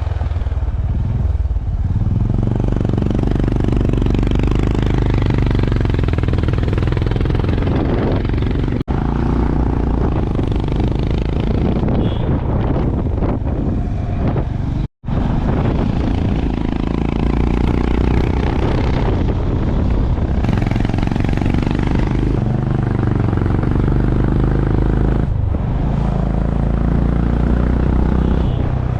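Honda CB350 RS's air-cooled single-cylinder engine running under way, its note rising and falling with the throttle. The sound cuts out briefly about nine seconds in and again, completely, about fifteen seconds in.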